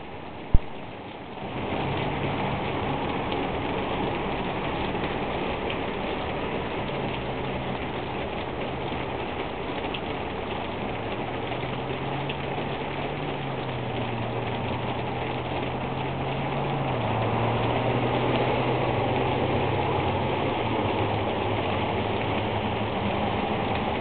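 Steady heavy rain falling, coming up loudly about a second and a half in after a single sharp click. A faint low hum runs underneath and slowly drifts in pitch.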